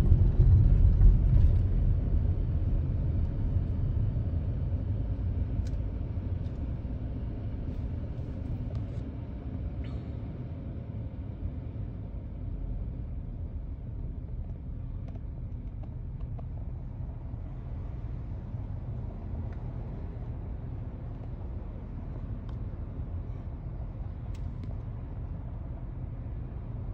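Low rumble of a car heard from inside its cabin, fading over the first several seconds as the car slows to a stop. It then settles into a steady low hum while the car waits at the lights.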